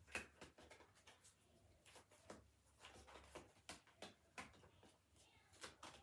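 Faint, irregular clicks and flicks of a tarot deck being shuffled by hand, about three a second.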